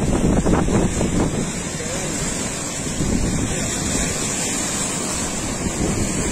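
Rough sea surf breaking under strong cyclone wind, with gusts buffeting the microphone.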